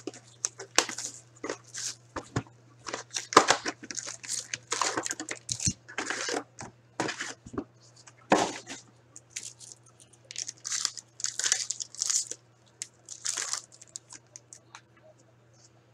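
Plastic shrink wrap and foil card packs crinkling and tearing as a sealed box of hockey cards is opened and its packs ripped open, in quick irregular bursts that thin out near the end. A steady low electrical hum runs underneath.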